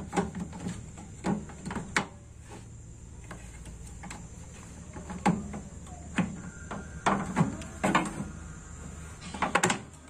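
Irregular clicks and knocks of a microwave oven's control board and casing being handled as the board is fitted back into the chassis.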